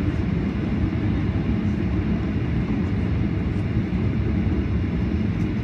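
Cabin noise of a Boeing 737 moving on a rain-soaked runway: a steady low rumble from the jet engines and the rolling airframe.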